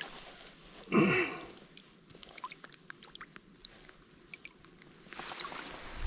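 A spotted bass being rinsed by hand in shallow creek water: scattered small drips and trickles, then water splashing near the end. A short grunt-like voice sound about a second in.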